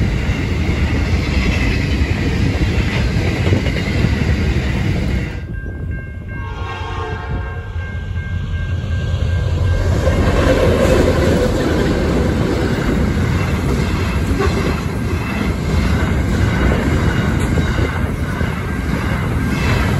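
Empty grain train of hopper wagons rolling past with steady wheel noise and clatter. About five seconds in the sound drops briefly and a few steady tones are heard. From about ten seconds in, diesel locomotives and more empty hoppers pass close by, louder again.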